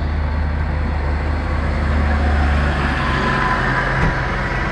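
A pulling tractor's six-cylinder diesel engine running steadily at idle, a low even rumble, with a faint whine coming in about three seconds in.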